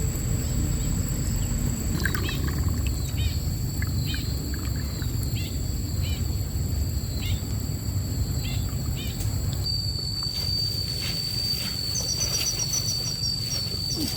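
Steady rush of a mountain stream with a bird calling over it, a short call repeated about every half second for several seconds. A steady high tone sets in about ten seconds in, with a quick run of high notes near the end.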